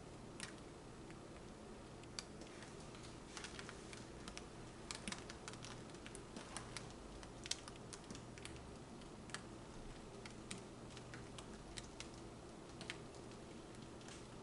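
Faint, irregular ticks and taps of wet acrylic pouring paint dripping off the edge of a tilted canvas onto the paper below, over a low steady hum.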